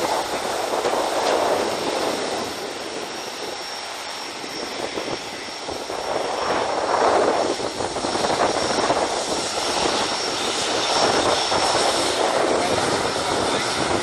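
Boeing 737-800's CFM56-7B jet engines running at taxi power: a steady high whine over a rushing noise that swells and eases a few times as the airliner rolls past.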